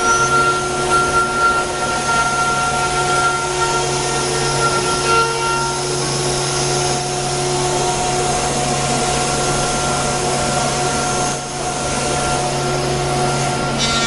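ATC CNC wood router running: a steady spindle whine of several tones over a broad hiss of cutting, with a low hum that comes in at the very start.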